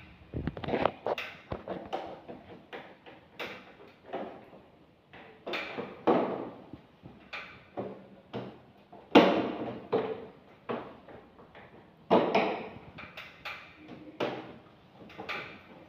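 Plastic front cover and filter area of an LG wall-mounted split air conditioner being lifted, handled and pressed shut: irregular clicks, knocks and scrapes, loudest about nine and twelve seconds in.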